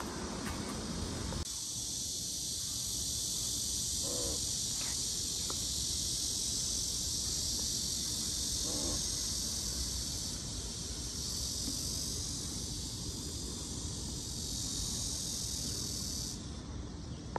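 Cicadas buzzing in a steady, high-pitched chorus from the trees, starting abruptly about a second and a half in and stopping shortly before the end, over a low outdoor rumble. Two faint, short wavering calls sound a few seconds apart.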